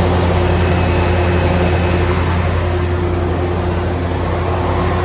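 Ford 351 Windsor V8 of a 1990 F-250 running steadily at idle, with the exhaust leak that the owner reports.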